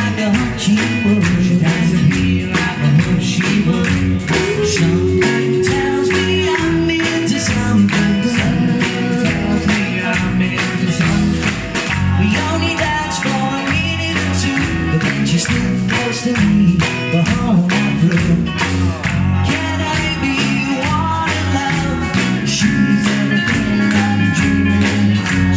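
A live 1960s-style beat band plays through the PA: electric guitars, bass and drums keep a steady, driving beat.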